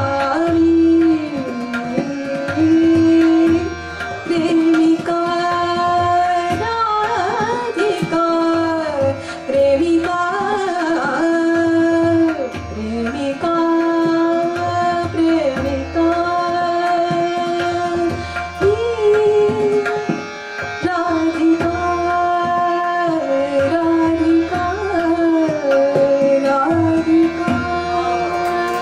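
Woman singing a Marathi bhavageet in Raga Madhukauns, with bending vocal phrases over harmonium and tabla accompaniment. The tabla's low bass strokes recur throughout.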